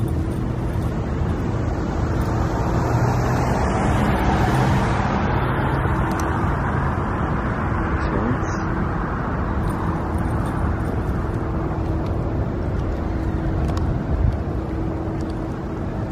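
Street traffic: a steady roadway hum, with one vehicle passing close about four seconds in, its noise swelling and then fading. A single click comes near the end.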